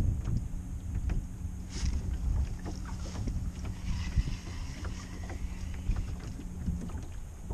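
Wind buffeting the microphone on a small fishing boat, with a low rumble throughout. A steady low hum runs through most of it, and there are scattered light clicks and taps.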